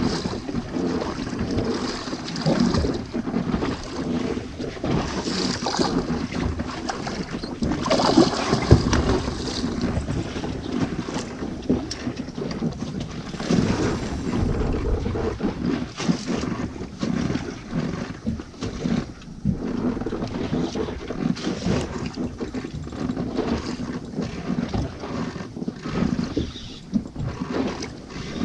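Wind buffeting the microphone of an action camera on a small boat at sea, an uneven, gusty rumble with sea noise around it.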